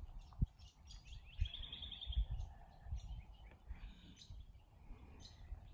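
Birds chirping in the background, with a short rapid trill of repeated high notes about a second and a half in, over scattered low thumps on the microphone.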